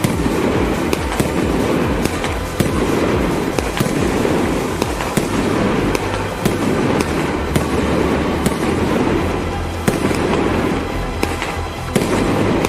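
Firework cake shots bursting in the air, many sharp reports in quick succession over continuous crackling, with background music underneath.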